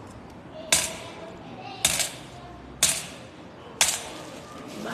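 Coins dropped one at a time into a metal bowl, four sharp clinks about a second apart, each followed by a brief ring from the bowl.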